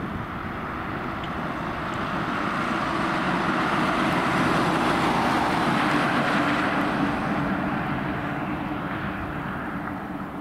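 Mercedes-Benz Sprinter ambulance driving past. Its engine and tyre noise swells to a peak about halfway through, then fades as it drives away.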